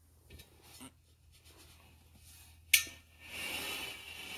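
Quiet handling noise: a few faint small knocks, a sharp click a little under three seconds in, then a soft rubbing hiss for about a second and a half.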